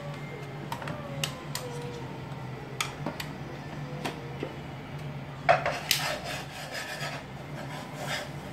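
A cooking utensil scraping and rubbing against a pan while butter and flour are stirred together, with scattered clicks against the pan and a sharper knock about five and a half seconds in. A low steady hum runs underneath.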